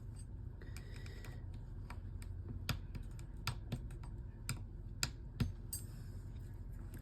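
Small, irregular clicks and taps of a hand tool against the plastic and metal parts of a disassembled smartphone while its loudspeaker module is being pried up, about a dozen ticks scattered unevenly.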